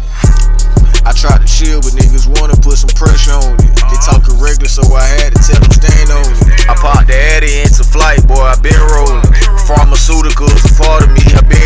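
Hip hop track: rapped vocals over a beat with heavy bass and a drum hit about twice a second. The beat drops back in right at the start.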